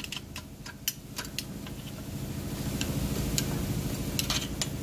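Scattered light clicks and taps of metal engine parts being handled, over a steady low hum.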